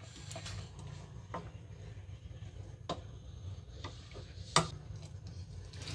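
A spoon stirring a thick mung bean stew in a stainless-steel pot, with a few scattered light clicks of the spoon against the pot, the loudest about four and a half seconds in, over a faint steady low hum.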